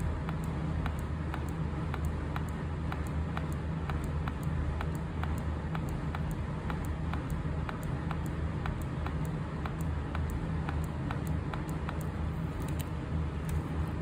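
Quick, evenly spaced clicks, about two to three a second, from the temperature-up button being pressed over and over on a Daikin wired air-conditioner remote controller, over a steady low hum.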